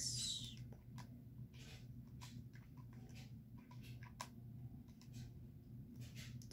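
Faint, irregular taps of fingers and nails on a smartphone touchscreen, keying numbers into a calculator app, over a low steady hum.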